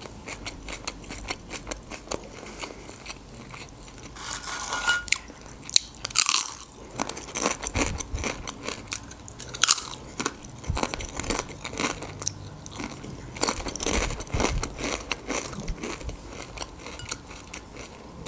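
Close-miked crunching and chewing of Doritos tortilla chips: many sharp crisp crunches in quick, irregular succession.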